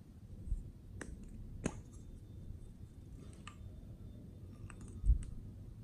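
Scattered light clicks and taps from small plastic and metal pieces and a spatula being handled over a glass dish of slime, with a dull thump about five seconds in.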